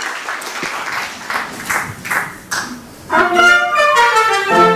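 Audience applause that dies away over the first few seconds. About three seconds in, the wind band comes in with loud, sustained chords.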